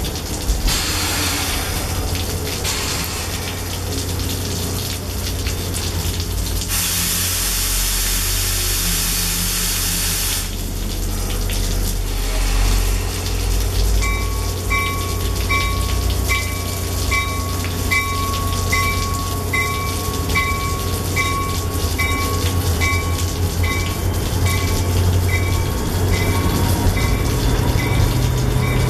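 NJ Transit commuter train at the station with rain falling: a steady low hum from the train and a loud release of hissing air for a few seconds, about seven seconds in. From halfway through, a bell dings about twice a second as the train starts to move off.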